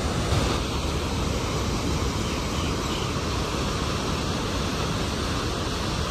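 Water rushing steadily through an opened dam gate, releasing accumulated silt and debris from the reservoir.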